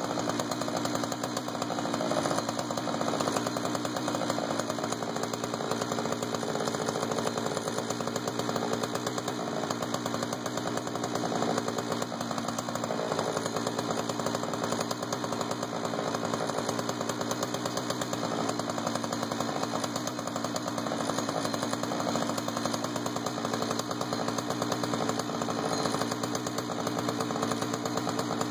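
Jonsered 2091 chainsaw, a 93 cc two-stroke, running steadily under load as it rips a pine cant lengthwise in a chainsaw mini mill with low-profile rip chain on a 20-inch bar.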